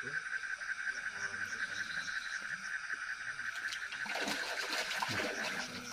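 Night chorus of insects and frogs from a pond: a steady, fast-pulsing shrill at one pitch. About four seconds in, a louder rush of splashy noise lasts a second or so.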